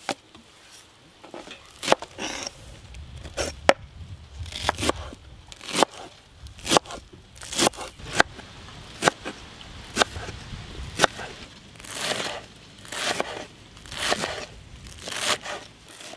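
Knife chopping fresh coriander on a wooden cutting board: sharp chops about once a second, some with a short rustle of cut leaves.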